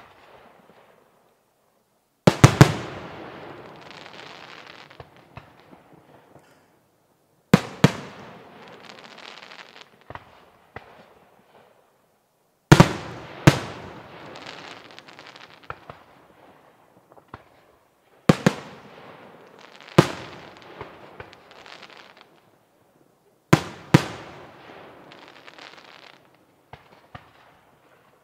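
Aerial firework shells bursting overhead: a loud bang or a quick pair of bangs every few seconds, about six in all, each followed by a fading crackling tail.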